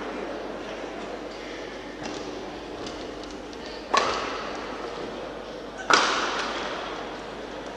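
Badminton racket strings striking a shuttlecock twice, about two seconds apart, each a sharp smack ringing on briefly in the hall's echo; the second hit is slightly louder.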